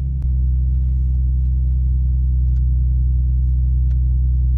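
Nissan 350Z's VQ35 V6 idling steadily, a low even hum, shortly after a cold start on a car that hasn't been run for a while. A single click sounds about a quarter second in, after which the idle is a little louder.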